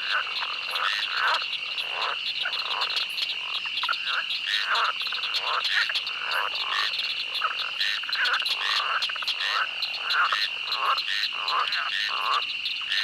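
A chorus of frogs croaking, many short calls overlapping several times a second, over a steady high-pitched trill of insects.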